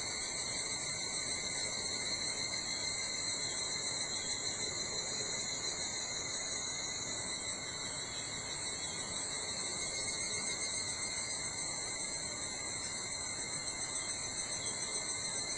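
Chorus of insects in a summer forest at dawn: several steady, continuous high trills at different pitches sounding together, without a break.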